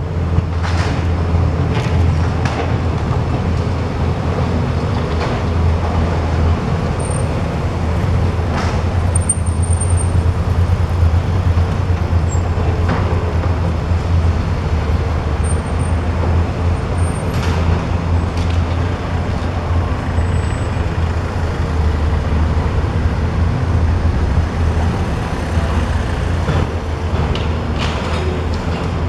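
Heavy diesel demolition machinery running steadily, with scattered sharp knocks and cracks throughout and a few brief high squeals.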